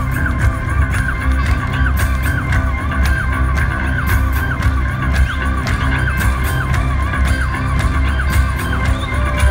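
Live rock band playing an instrumental passage: a heavy bass line under a steady hi-hat beat, with a wavering melody line above.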